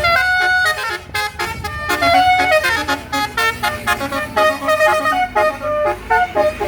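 Basuri telolet bus horn playing a fast melody, its trumpets sounding short, quickly changing notes, often several at once.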